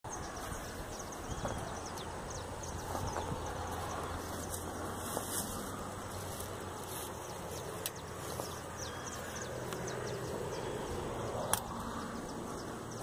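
Steady outdoor ambience by a pond with a low hum, faint scattered ticks, and a sharp click about eight seconds in and another near the end.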